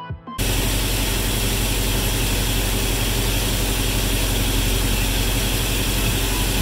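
Toyota 22RE 2.4-litre four-cylinder engine, a freshly installed replacement, idling steadily while its ignition timing is set with a timing light. It starts abruptly about half a second in.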